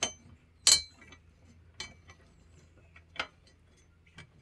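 An Allen key clinking against the bolts and metal track of a truck-bed rack rail as each bolt is checked: four sharp metal clinks about a second apart, the second one loudest.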